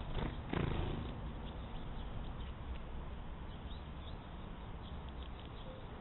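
A short whirring wing flutter about half a second in, as a great tit flies close past the trail camera's microphone, over a steady hiss with a few faint, short bird chirps.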